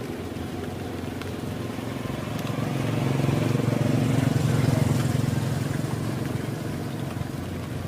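Kubota DC-70 combine harvester running steadily, its engine hum growing louder for a few seconds in the middle and then fading again as the machine passes close by.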